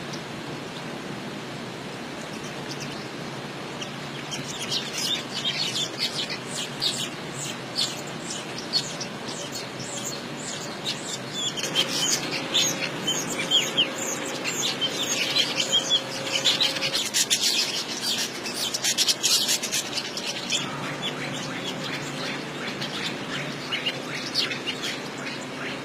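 Small birds chirping, a rapid run of short high chirps that starts about four seconds in and is busiest through the middle, over a steady background hiss.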